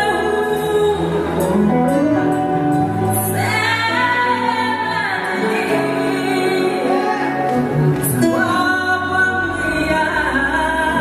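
A woman singing into a microphone over band accompaniment, with long held and sliding notes.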